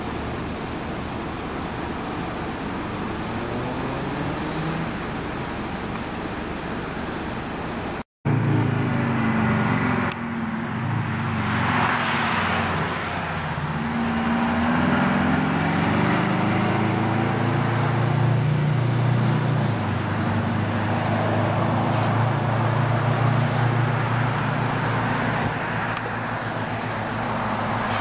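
Road traffic with vehicle engines running. After a short cut about eight seconds in, a louder engine runs with its pitch rising and falling as vehicles pull away and pass, one car going by a few seconds later.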